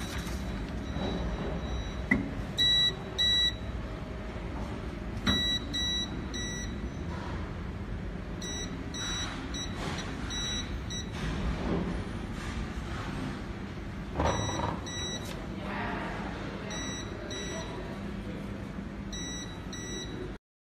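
3D printer running its auto-leveling routine: groups of two or three short, steady high-pitched tones that start and stop abruptly, repeated every few seconds over a low machine hum, with a couple of knocks.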